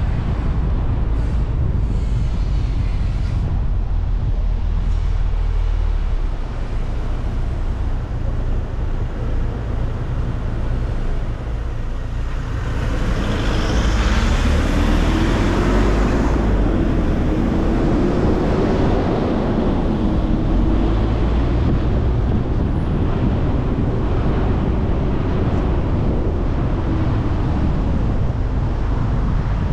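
Car driving in city traffic: a steady road and engine rumble. About halfway through a louder rush builds, and after it an engine note rises and falls for several seconds.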